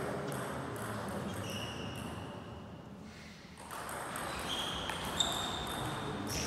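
Table tennis ball clicking off the bats and table during a rally that starts about halfway through, with a few short high squeaks.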